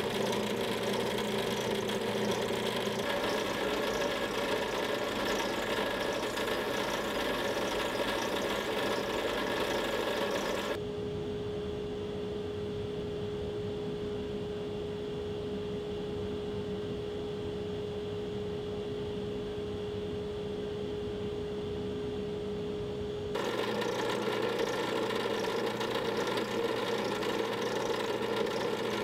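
Drill press running with a wooden pen blank spinning in its chuck, as sandpaper and then a paper towel are held against the turning wood. From about a third of the way in until near the end the hiss falls away and only a steady motor hum is left, then the fuller sound returns.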